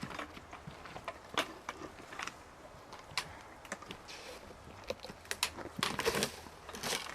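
Irregular light clicks and knocks, a few per second, thickening about five to six and a half seconds in, over faint background noise.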